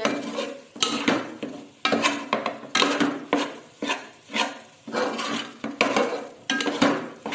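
Slotted metal spatula scraping and knocking around a metal pot, about twice a second, as flour is roasted in ghee for halwa.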